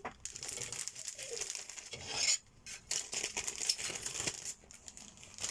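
Plastic model-kit parts and their bags being handled: crinkling plastic with irregular small clicks and taps.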